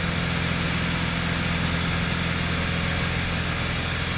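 Light aircraft's piston engine and propeller droning steadily, heard from inside the small cabin.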